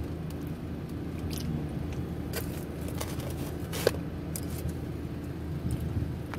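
Car engine idling: a steady low hum, with a few faint clicks, one sharper about four seconds in.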